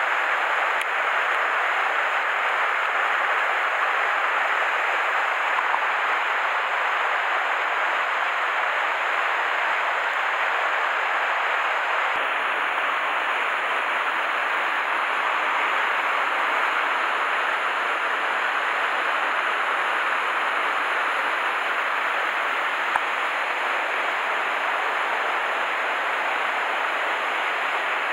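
Steady rushing of a mountain stream, an even wash of water noise.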